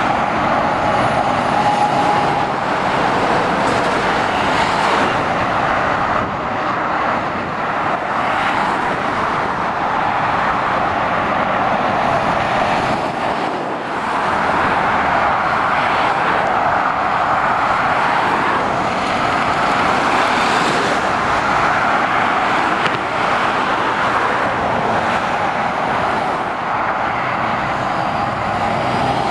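Motorway traffic passing below: lorries and cars with steady tyre and engine noise, swelling and easing as vehicles come and go, dipping briefly twice.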